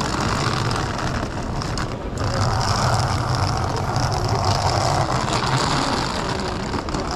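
Rainy city street ambience: steady traffic noise with a continuous low hum and hiss, dipping briefly about two seconds in.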